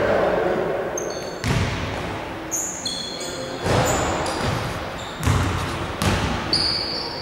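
Basketball bounced on a hardwood gym floor, about five uneven bounces that ring briefly in the hall, as the shooter dribbles before a free throw. Brief high squeaks come between the bounces.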